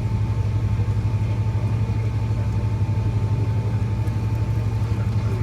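Steady drone inside the cabin of a Boeing 777-300 on the ground, its engines running at idle, with a thin steady whine over the low hum.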